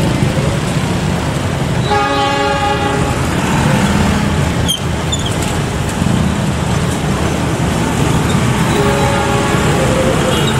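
Diesel locomotive moving slowly on shunting duty, its engine running steadily, with a horn blast of just over a second about two seconds in and a shorter, fainter horn toot near the end.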